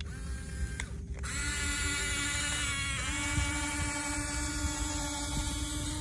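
Small electric drive motors and gearboxes of a Huina 1569 RC bulldozer whining as it crawls over sand, the pitch stepping to a new level a few times as the motors change speed.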